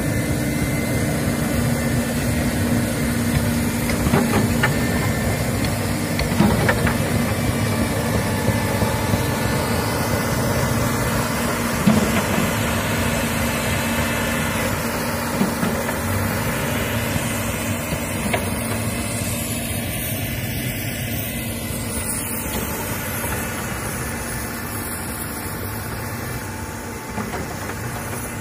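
Komatsu PC200 hydraulic excavator's diesel engine running steadily, with a few sharp clanks in the first twelve seconds; the sound grows gradually quieter toward the end.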